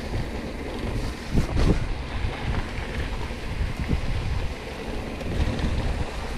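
Wind buffeting an action camera's microphone on a Yeti SB100 mountain bike riding a bike-park trail, over a steady low rumble of tyres and bike. A couple of sharp knocks from the bike about a second and a half in, and a smaller one near four seconds.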